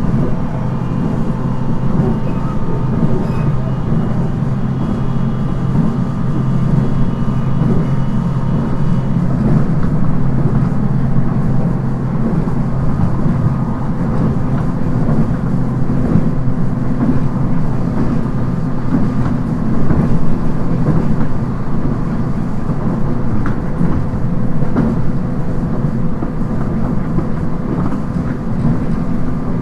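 JR East 719 series electric train heard from inside the car, running at a steady speed: a dense low rumble from the wheels and running gear, with a few steady motor and gear tones above it. This unit is known for an abnormal running noise.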